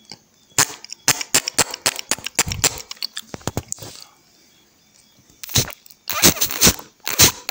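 A quick run of sharp cracks and crunches, then after a pause several longer, louder crunching bursts.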